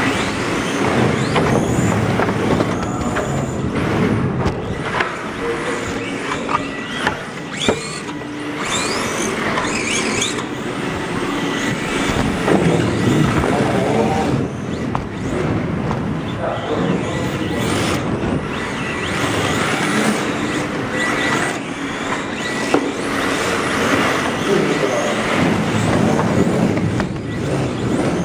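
Onboard sound of a radio-controlled drift car driving and sliding around a small indoor track: a steady noisy rush with the motor's pitch rising and falling with the throttle, and a few sharp clicks along the way.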